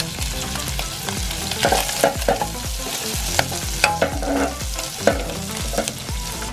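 Chopped liver frying in oil in a non-stick pan, sizzling steadily, while a wooden spatula stirs it with irregular clicks and scrapes against the pan.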